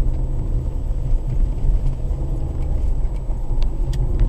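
Car driving, picked up inside the cabin by a dashboard drive recorder: a steady low rumble of engine and tyres on the road, with a few faint ticks in the second half.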